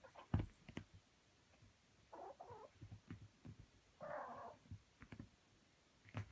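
A cat wrestling and kicking a toy on a bed: soft thumps and rustling of the bedcover, the loudest thump about half a second in, with two short soft noises about two and four seconds in.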